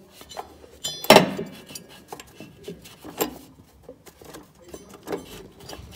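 Irregular metallic knocks and clinks as a rubber V drive belt is worked by hand around the pulleys and brackets of a zero-turn mower. The loudest knock comes about a second in, with smaller ones scattered after it.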